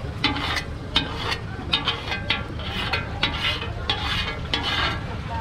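Curved scraper scraping across a hot flat griddle as thin crepe batter is spread into swirls: a quick, uneven run of short scrapes, two or three a second, over a faint sizzle.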